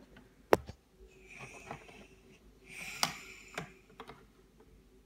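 Plastic toy playhouse and its small pieces being handled: a sharp click about half a second in, then soft rustling and a few lighter clicks.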